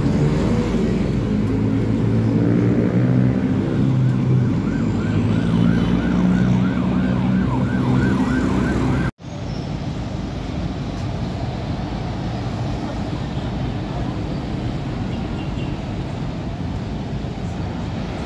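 Heavy trucks and cars passing on a busy road, truck engines running low and loud. From about four seconds in, a siren whoops quickly up and down, a few times a second, for several seconds. About halfway the sound cuts off abruptly to steadier, quieter traffic noise.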